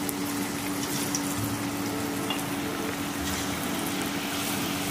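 Egg- and flour-coated potato strips deep-frying in a pot of hot oil: a steady, even sizzle with small crackles, over a steady low hum.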